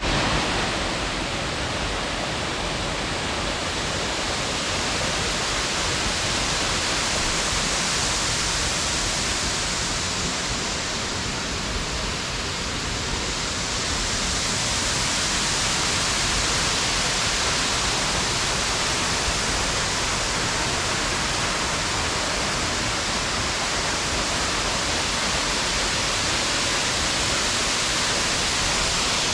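Steady, even rush of water falling at a waterfall, unbroken and unchanging in level.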